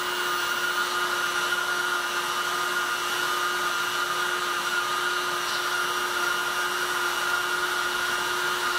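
Handheld heat gun running steadily, its fan giving a constant rush of air with a steady motor whine, as it heats black plastic honeycomb intake mesh until the plastic softens and turns glossy.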